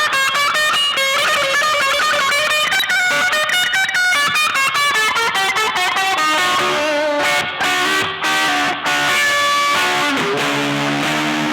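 Electric guitar played through an EarthQuaker Devices Zoar distortion pedal: fast single-note lead runs, turning about ten seconds in to lower, repeated riff notes.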